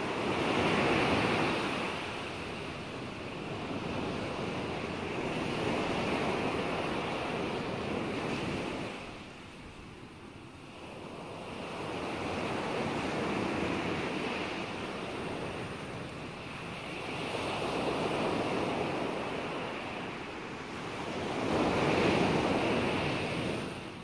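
Ocean surf: a rushing noise that swells and ebbs in slow waves every four to five seconds, with a quieter stretch about ten seconds in and a last swell near the end.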